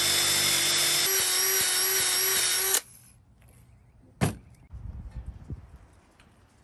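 Electric drill with a wood bit running steadily as it bores into wood, its pitch stepping up slightly about a second in, then cutting off abruptly about three seconds in. About a second later comes a single sharp knock, followed by faint handling noises.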